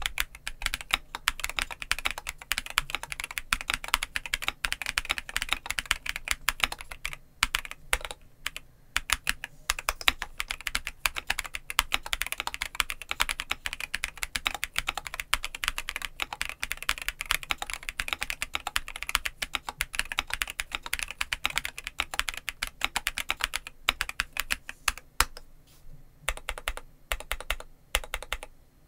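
Monsgeek M3W mechanical keyboard with V3 Cream Blue Pro switches and PBT keycaps, typed on in a fast, steady run of keystrokes. The typing grows sparser, with short pauses, near the end.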